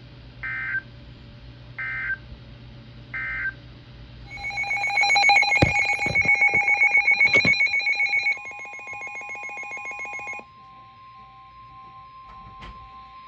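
NOAA Weather Radio alert signalling. First come three short digital data bursts, about a second and a half apart: the SAME end-of-message tones. About four seconds in, a loud, rapidly pulsing electronic alarm begins, and from about eight seconds a steady single-pitch alert tone sounds, announcing a new warning.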